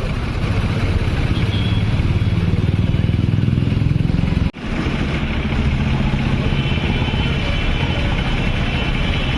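Road traffic with a heavy engine running close by, a dense low rumble. The sound cuts out for an instant about four and a half seconds in.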